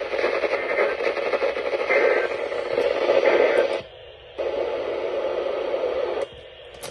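Radio receiver hiss and static with no programme audio. It cuts out abruptly for about half a second about four seconds in, comes back, and drops off again near the end.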